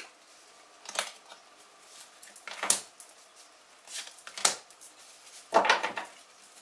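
A deck of Tarot de Marseille cards handled by hand: shuffled, fanned out and two cards pulled and laid on a wooden table, heard as four short bursts of card rustle and snap.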